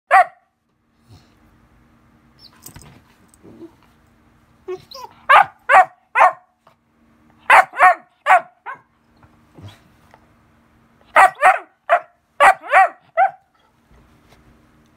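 74-day-old Weimaraner puppy barking loudly: one bark at the start, then quick runs of about three barks each, a third of a second apart, four runs in all.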